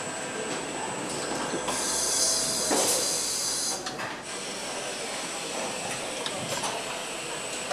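Car assembly-line machinery running with a steady mechanical noise. A hiss starts about two seconds in and lasts about two seconds, and a few sharp clicks and clanks come around the middle.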